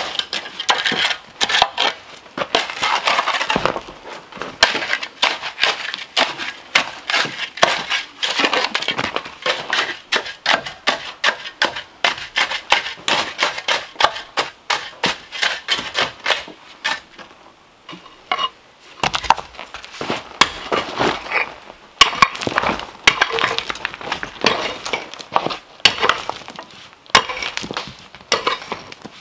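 Steel shovel digging and scraping into stony, sandy soil, with gravel and small stones crunching and clinking in quick repeated strokes. There is a short lull about two-thirds of the way through.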